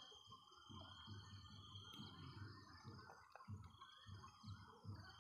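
Near silence: faint outdoor background with a thin, steady, high tone that drops out for a second or so in the middle, and one faint click about two seconds in.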